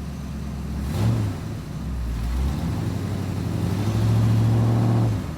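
Vehicle engine running, revving up briefly about a second in and held higher for about a second near the end before dropping back.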